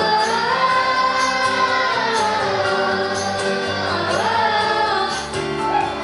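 Pop song: layered female vocals hold long wordless notes over the backing track.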